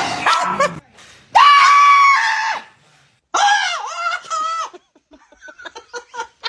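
High-pitched screaming: a loud noisy burst at the start, then after a short gap one long held scream, three shorter wavering ones, and a run of short choppy sounds near the end.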